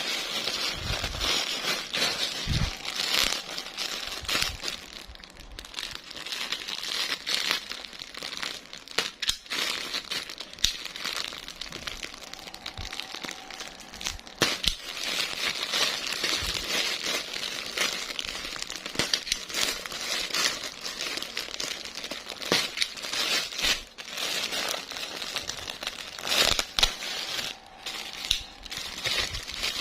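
Packaging crinkling and rustling as a parcel of clothes is handled and opened, with many sharp crackles throughout.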